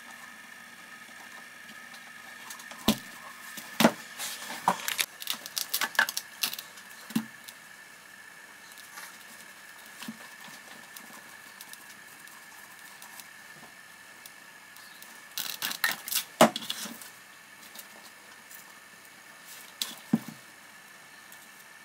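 Handling noises of a leather boot and lining pieces being worked by hand on a workbench: light taps, knocks and rustles in two bursts, about three seconds in and about fifteen seconds in, with a few more near the end. A faint steady hum sits underneath.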